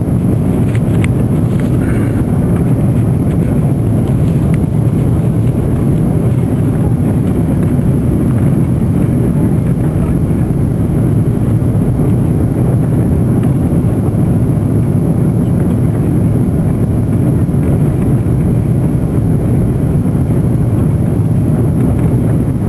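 Steady cabin roar of an Airbus A340-300 on approach, heard from a seat over the wing: its four CFM56 turbofans and the airflow past the fuselage, a deep even rumble with no change in level. A faint thin high whine runs along with it.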